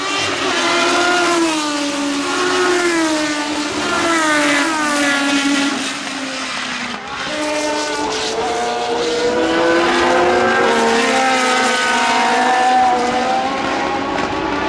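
Historic 1970s Formula One cars at race speed, including the six-wheeled Tyrrell P34 with its Cosworth DFV V8, engines revving past. Their pitch climbs and drops repeatedly, and from about halfway two engine notes overlap.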